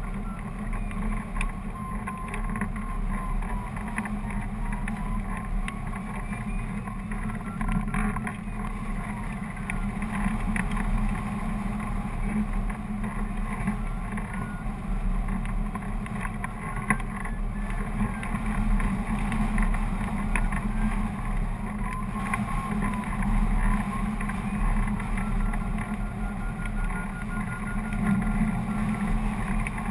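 Rushing airflow buffeting the microphone of a camera on a hang glider in flight, steady with gusty surges. A faint beeping tone rises and falls in pitch over it, from a flight variometer reporting climb and sink.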